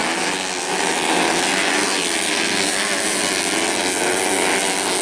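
Several racing motorcycles running at high revs on a dirt track, their engines overlapping in a steady, many-pitched drone.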